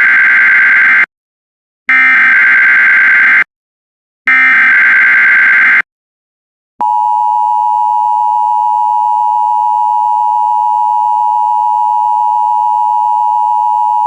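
Emergency Alert System header: three warbling SAME data tone sequences, each about a second and a half long with short gaps, carrying the encoded alert. About seven seconds in, the steady two-tone EAS attention signal (853 and 960 Hz) sounds, announcing the spoken alert.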